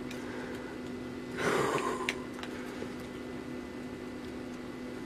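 A steady electrical hum fills a small room, with a brief rustle about a second and a half in and a few faint clicks as a Nikkor zoom lens is turned over in the hands.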